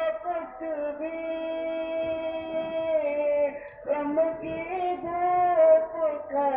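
A naat, an Islamic devotional song, sung by a single voice drawing out long held notes, with a short break near the middle.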